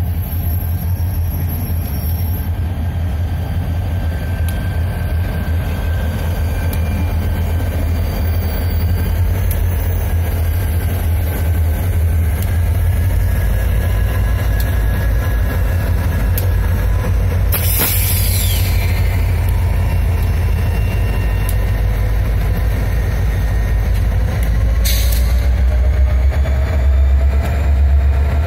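A freight train passes at walking pace, first covered hopper cars and then diesel locomotives, with a heavy, steady low rumble from the engines and wheels. A short hiss about two-thirds of the way through and a single sharp clank a little later stand out. The rumble grows louder near the end as a locomotive draws level.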